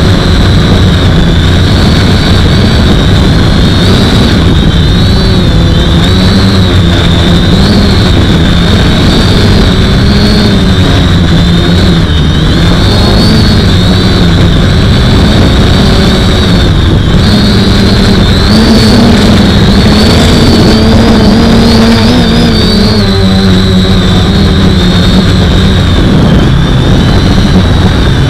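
Four 1000 kV brushless motors and unbalanced propellers of an H-frame FPV quadcopter in flight, heard from on board. The whine rises and falls in pitch over and over as the throttle changes.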